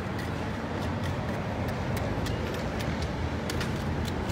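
Steady rumble of street traffic, with a run of light, sharp metallic clicks and scrapes from a knife sliding grilled mutton along a steel skewer.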